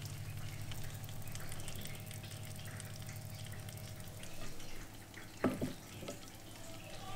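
Faint wet dripping and crackling of cooking juices as a slow-cooked chicken thigh is lifted on a wooden spatula out of a slow cooker, over a steady low hum. About five and a half seconds in, two short knocks as the spatula sets the thigh down on a ceramic plate.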